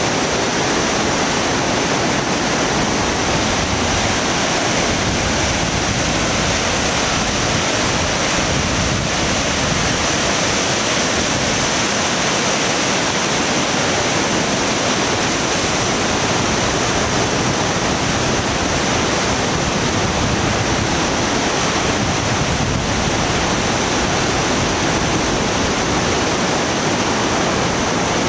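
A fast, turbulent, silt-laden mountain river rushing below: a loud, steady roar of water.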